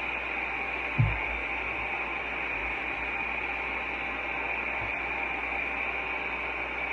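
Handheld hair dryer blowing steadily, drying a freshly brushed clear coat, with a low thump about a second in.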